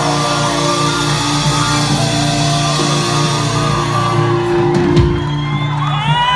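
Live rock band with electric guitar and drums holding a long closing chord, the cymbals dying away about four seconds in. The crowd begins to cheer and whoop near the end.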